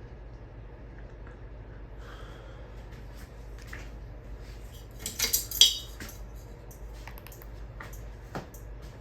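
Ceiling fan running with a steady low hum, and about five seconds in a short burst of clinking and clattering, like small hard objects being knocked together.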